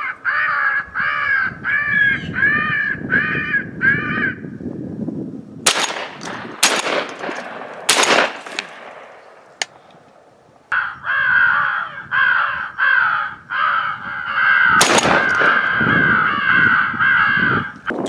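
Crow caws in quick runs: a string of about eight in the first four seconds and a longer, steadier string in the second half. Shotgun shots crack between them: three or four in quick succession around the middle, and one more during the second run of caws.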